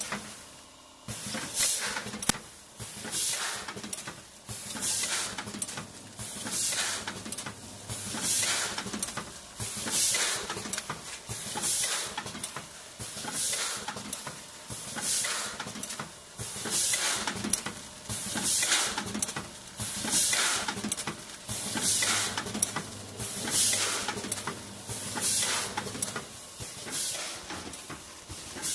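Vertical form-fill-seal bagging machine cycling, with sharp air hisses and mechanical clacks repeating every second or two as the pneumatic sealing jaws open and close and the film is pulled through. It is running in test mode, forming bags without filling them.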